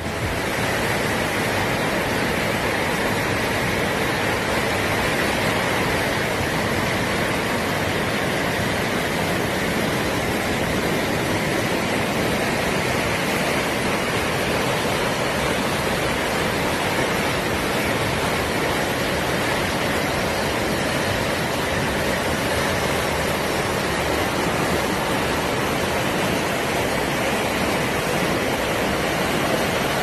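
Fast-flowing whitewater rushing steadily, an even hiss-like noise with no breaks or changes.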